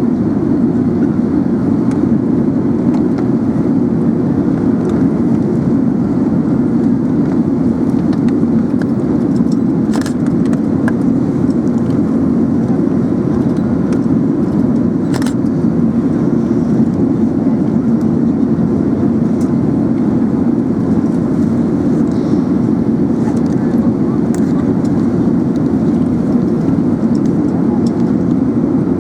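Steady rush of an Airbus A380 in flight heard inside the passenger cabin: a loud, even roar of airflow and engines. There are a couple of brief faint clicks about a third and half of the way through.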